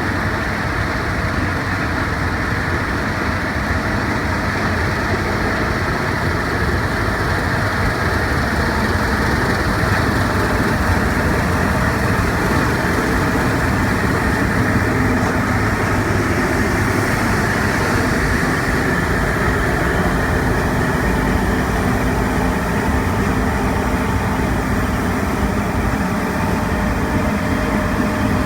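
John Deere combine harvester running steadily while cutting winter barley, a loud, even machine noise with no change in pace.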